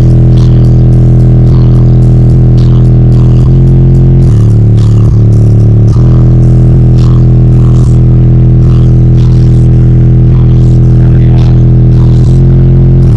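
Car subwoofers, four American Bass TNT 10-inch drivers in a ported box on a Crescendo 2000-watt amplifier, playing a bass-heavy track very loud. The deep, sustained bass notes change pitch every couple of seconds.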